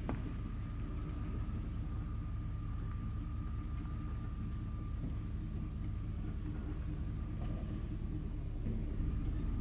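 A van's engine running as it drives slowly toward the microphone, a steady low rumble that grows a little louder near the end.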